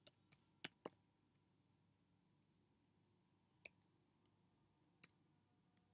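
Faint computer-keyboard keystrokes over near silence: four quick taps in the first second, then single taps about three and a half and five seconds in.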